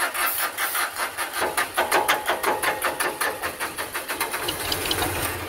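Ford 1520 tractor's three-cylinder diesel engine cranking over on the starter in an even rhythm of about six compression pulses a second, trying to start with its injector lines just bled of air.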